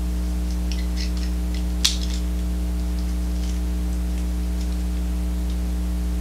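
Plastic parts of Transformers Animated Jetfire and Jetstorm toy figures clicking and rattling as their pegs are fitted together, with one sharp snap just under two seconds in. A steady low electrical hum runs underneath.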